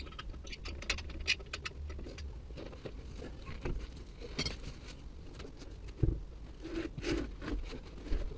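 Scissor jack being cranked by hand, lifting the van's front corner: irregular metallic clicks and scrapes, quickest in the first couple of seconds, with a heavier knock about six seconds in.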